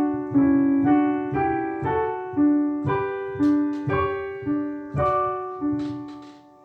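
A slow melodic phrase played on a piano, single notes with chords beneath struck about twice a second, the last note ringing out and fading near the end.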